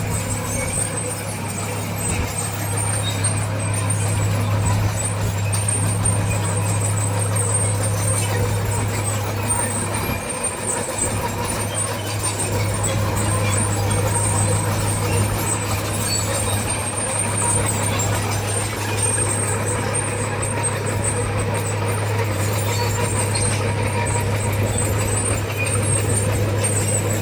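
Diesel engine of a heavy earthmoving machine running steadily under work, with a brief dip about ten seconds in.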